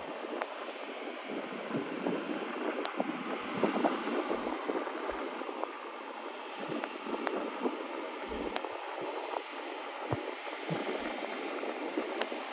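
Jet aircraft engines heard from a distance at an airport: a steady rushing noise with scattered faint crackles.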